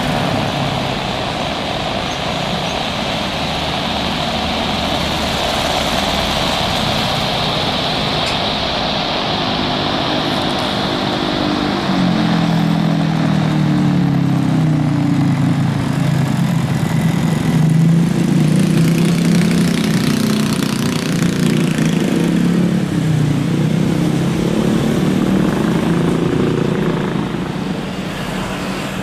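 Embraer Legacy 650 business jet on approach, its engines a steady hissing whine that slowly fades. About twelve seconds in, a louder low drone of aircraft engines takes over, its pitch wavering up and down, as a business jet lands.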